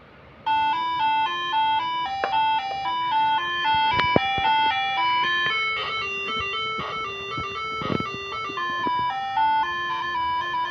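Moreno MS7 'angklung' melody air horn module playing its tune number 1: a stepping melody of steady horn notes in two parts, starting about half a second in. A few sharp clicks sound over the tune, the loudest about four seconds in.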